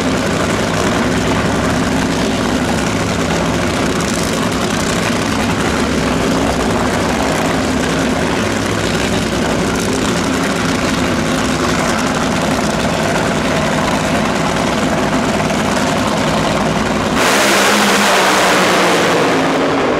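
Top Fuel Funny Car's supercharged, nitromethane-burning V8 idling with a loud, steady, lumpy note. About 17 seconds in it suddenly goes to full throttle, far louder, for about two seconds.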